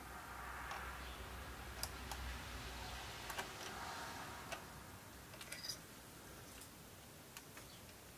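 Faint scraping and a few light clicks of a small screwdriver working the adjustment screw in an air rifle's GRT 4G trigger blade, tuning the trigger's pull and second stage. The scratchy sound is strongest in the first half, and scattered ticks continue as the tool and rifle are handled.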